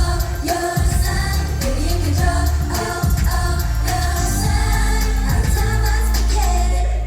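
K-pop song with a group of female singers over a heavy bass-driven beat, played loud through a concert PA. The music cuts off abruptly near the end as the song finishes.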